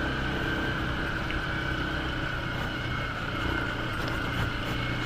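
Motorcycle engine running steadily at low speed, heard from the riding bike.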